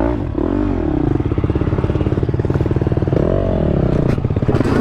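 Yamaha YZ250X two-stroke dirt bike engine running hard, heard from inside the rider's helmet. The revs rise and fall twice, about half a second in and again after three seconds.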